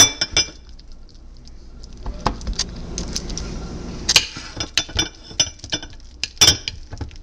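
Spoon clinking and scraping against a dish while scooping out a spoonful of fajita filling: a string of irregular sharp clinks and knocks, the loudest at the start, about four seconds in and about six and a half seconds in.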